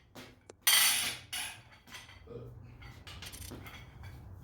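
A wrench and ratchet working tight cylinder head bolts loose, with metal creaking and ratchet clicks, loudest about a second in.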